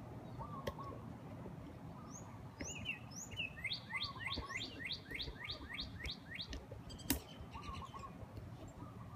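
Birds singing: a fast run of about a dozen rising chirps, roughly four a second, with lower repeated calls now and then. Wind rumbles on the microphone underneath, and there is a single sharp click about seven seconds in.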